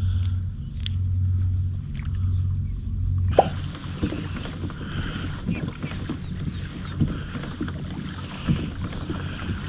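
Kayak on the water: low water and wind noise against the fishing kayak and its microphone, with small knocks from the hull and gear. It starts as a steady low hum and changes abruptly, about three seconds in, to an uneven rumble with scattered soft knocks, and a faint high steady whine runs throughout.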